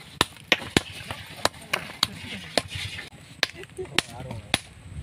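Small hand hammer striking lumps of gold-bearing ore rock, about a dozen sharp, hard cracks at an uneven pace of roughly two a second, as the ore is broken down into small pieces by hand.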